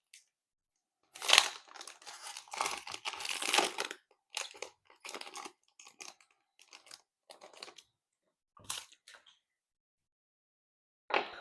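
Foil trading-card pack being torn open and crinkled: a dense burst of crackling for a few seconds, then scattered short crinkles that die away near the end.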